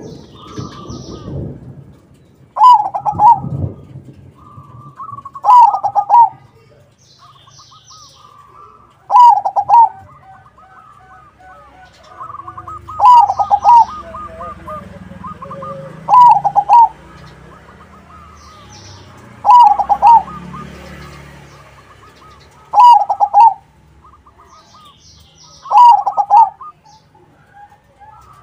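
Crossing-bred zebra dove (perkutut) cooing its rolling, staccato song, a loud phrase about every three seconds. Fainter, high chirps of other birds sound between the phrases.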